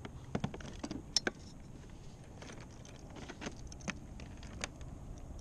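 Scattered light clicks, knocks and rattles of fishing tools and tackle being handled while rummaging through a kayak storage bag for a replacement pair of pliers, with a cluster in the first second and more a few seconds in.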